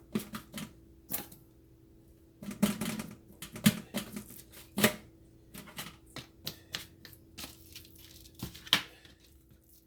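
Hands patting and pressing seasoning into raw T-bone steak, making irregular wet slaps and taps, some in quick clusters.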